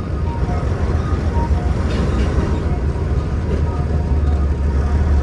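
Semi-truck diesel engine running with a steady low rumble, heard from inside the cab while the truck is driven.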